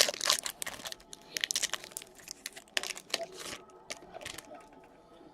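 Trading card pack wrappers crinkling while packs are opened and cards handled. The crackling comes in dense clusters and thins out near the end.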